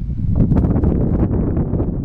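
Gusty wind buffeting the microphone, a loud low rumble that rises and falls.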